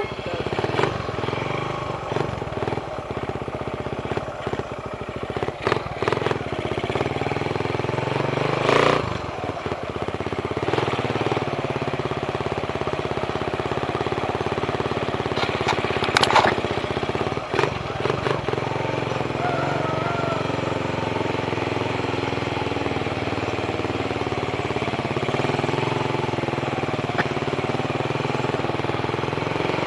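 Suzuki Raider 150 carburetted motorcycle's single-cylinder engine idling steadily, with a few brief sharp knocks partway through.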